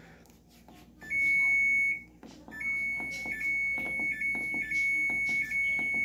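Samsung Wobble washing machine control panel beeping as buttons are pressed to set the pre-dry option. There is one steady high beep about a second long, then a long continuous beep at the same pitch with brief breaks every half second or so.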